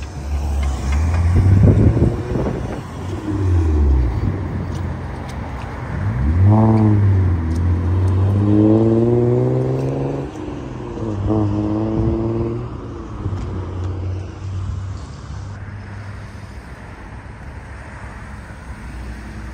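Cars accelerating away one after another, each engine rising in pitch as it goes up through the gears. It settles to a quieter steady rumble over the last few seconds.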